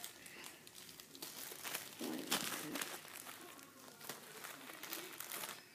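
Plastic bag packaging crinkling in short, irregular crackles as squishy toys are handled, loudest about two seconds in.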